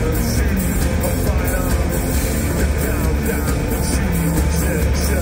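Industrial band playing loudly through a concert PA: a steady, driving beat over heavy bass, with the singer's voice into the microphone.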